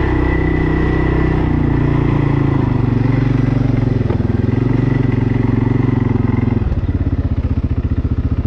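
ATV engine running as the quad is ridden across mud, its pitch shifting with the throttle, with a steady high whine alongside. About two-thirds through, the whine stops and the engine drops to an evenly pulsing idle.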